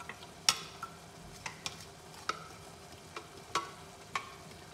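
Small garlic container being tapped and scraped to knock the last minced garlic into a wok of sauce: about seven sharp, irregular taps, the loudest about half a second in.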